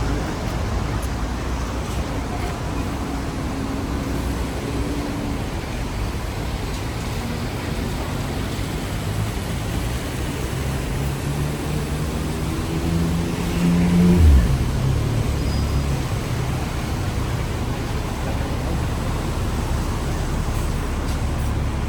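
Hong Kong double-decker tram riding along a city street: a steady rumble with traffic noise. About nine seconds in, a motor hum starts rising in pitch, then breaks off with a brief loud low thump.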